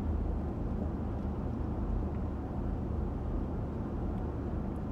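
Steady low road and engine rumble inside the cabin of a moving SUV.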